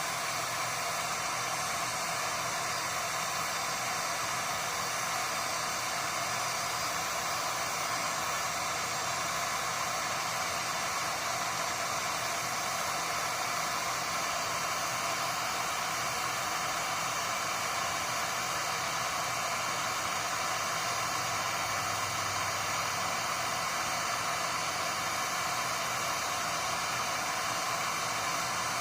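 Electric heat gun (SEEKONE 1800 W) blowing steadily on its low setting, a constant fan-and-airflow hiss with no change in level, as it heats a solder seal wire connector.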